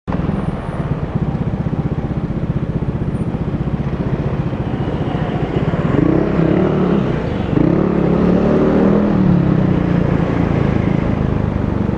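Yamaha Aerox scooter's single-cylinder engine running through a Navin aftermarket racing exhaust, idling with a steady pulse, then revved up and down in a few blips from about halfway through.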